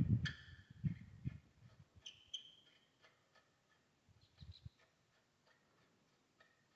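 Faint clicks and a few dull knocks of a wrench working on the tractor's diesel engine, with a short high chirp about two seconds in.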